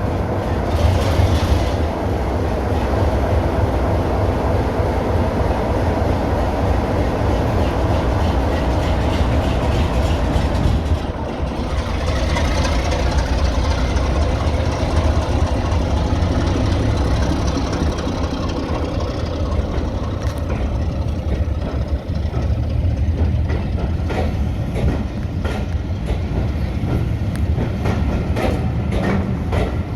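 Heritage diesel train running with a steady, deep engine drone and a rushing noise above it. A run of sharp clicks comes in over the last third.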